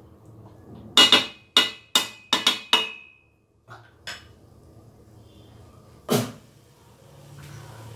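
A quick run of sharp metallic clinks with a short ring, as a steel utensil strikes a stainless-steel cooking pot, over about two seconds; one more knock comes about six seconds in.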